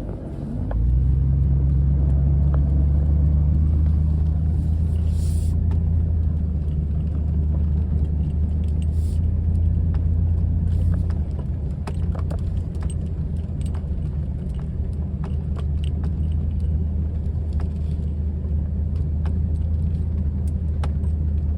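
Pickup truck engine idling, a steady low rumble whose note shifts about a second in, with scattered light clicks over it.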